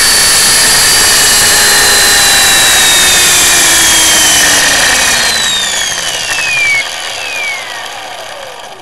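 E-Sky Honey Bee King 3 RC helicopter's electric motor, gears and rotor, picked up by a camera mounted on the helicopter itself. They whine steadily, then from about halfway through wind down, the pitch falling and the sound fading as the rotor coasts to a stop.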